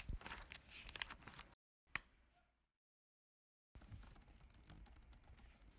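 Quiet typing on a laptop keyboard: runs of small key clicks in short stretches that cut off abruptly, with one sharper single click about two seconds in.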